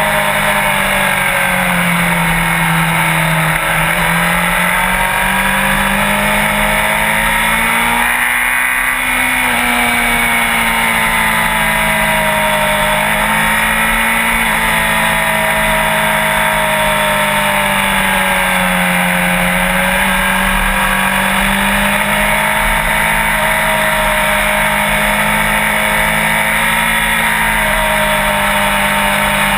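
Sport bike engine running under way, its pitch rising and falling gently with the throttle, over a steady rushing noise.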